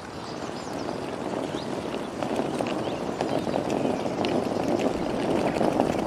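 Wheeled suitcase rolling and rattling along a tarmac lane, growing louder, with birds chirping over it.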